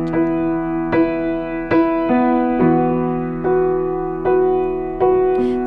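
Piano music with no singing: slow chords, a new chord or note struck about once a second.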